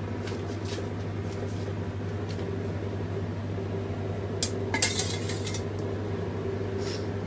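Metal spoon scraping and clinking against a stainless steel pot as boiled elbow macaroni is scooped out. There are scattered short clinks, with a cluster of them about two-thirds of the way through, over a steady low hum.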